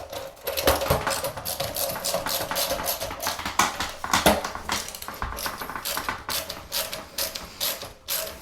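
Rapid, irregular metallic clicking and clinking of hand tools working on metal parts.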